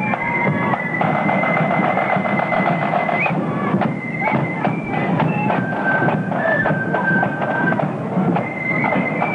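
Marching flute band playing: flutes carry a melody in long held notes over a bass drum and side drums beating time.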